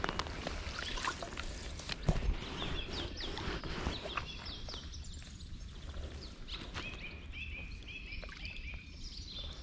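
Water splashing as a hooked trout is played toward a landing net, with a louder splash about two seconds in. A bird sings repeated runs of quick falling notes over it.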